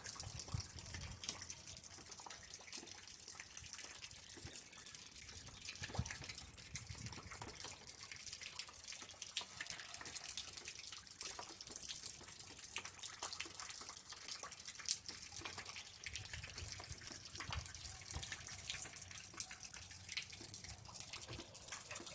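Rain falling steadily in open country: a constant hiss of drops with many separate drips ticking through it, and a low rumble now and then.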